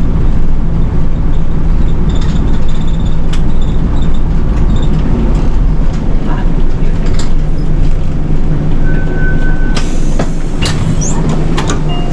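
City bus in motion heard from on board: a steady low engine drone with road and body noise. Near the end come a few sharp clicks and a short high tone.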